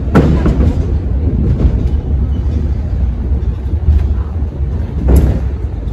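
A 1907 railroad turntable rotating with people riding on its deck: a steady low rumble, with two sharp clanks, one just after the start and one about five seconds in.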